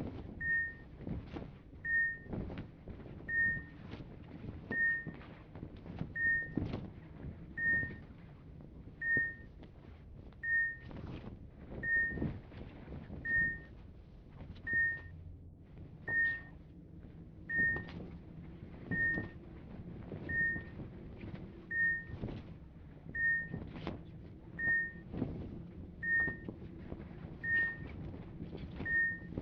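Hospital medical equipment beeping: one short, high beep about every second and a half at an even pace, over a low hum with scattered faint knocks and rustles.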